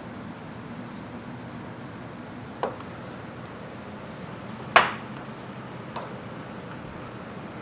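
Metal hand tools knocking and clanking as they are handled and set down while a puller is fitted to a motorcycle magneto rotor: a light knock about two and a half seconds in, a sharper, louder clank near the middle, and a smaller one about six seconds in, over a low steady hum.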